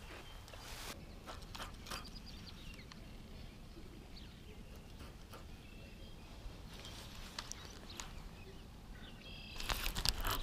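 Quiet lakeshore ambience with a few short bird chirps. Faint scattered clicks come from a baitcasting reel being handled while its tangled line is picked out. Near the end there is a louder burst of rustling handling noise.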